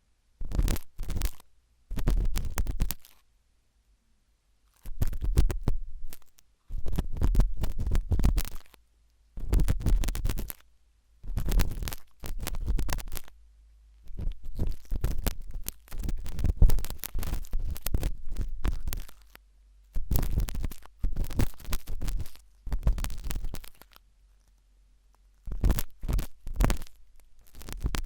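A pointed toothpick scraping and scratching inside an ear, close-miked, in repeated strokes of a second or two with short silences between them. Each stroke carries a low rumble.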